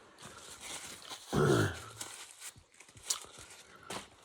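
A man's short, low guttural vocal sound, falling in pitch, about a second and a half in; a couple of faint clicks follow near the end.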